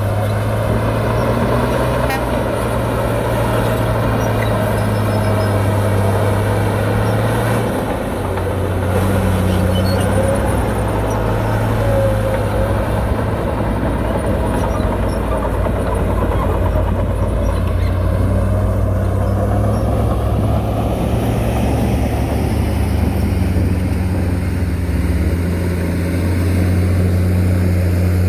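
Heavy diesel engine of earthmoving machinery running steadily. Its low hum shifts in pitch a few times, around eight seconds in and again near the end.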